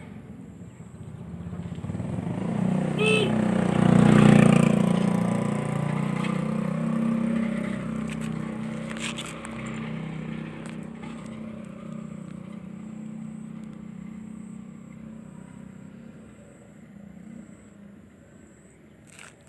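A motor vehicle passing along the road: its engine and tyre noise build up, are loudest about four seconds in, then fade slowly as it moves away.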